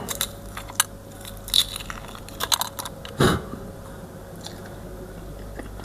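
Close-miked chewing and wet mouth clicks of someone eating, with one louder short mouth sound about three seconds in.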